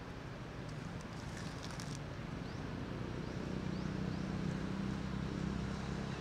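Outdoor ambience: a low steady hum that grows louder from about halfway through, with a few faint clicks about a second in and several short high chirps in the middle.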